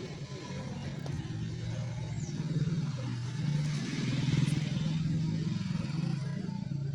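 Motor vehicle engine running and passing, a steady low hum that grows louder about four seconds in and then eases off.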